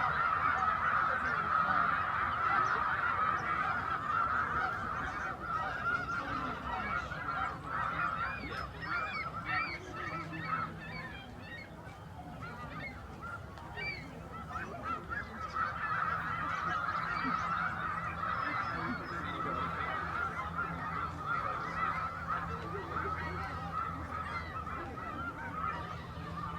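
A large flock of wild geese honking continuously, many calls overlapping into a dense chorus. It eases off somewhat in the middle, where separate calls stand out, then swells again.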